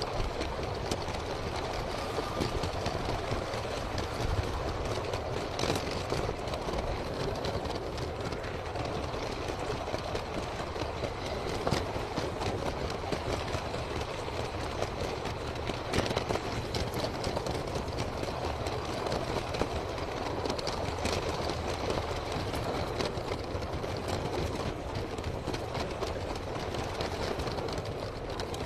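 LEGO train running on plastic LEGO track: a steady rattle of its wheels and motor, with a few sharper clicks along the way.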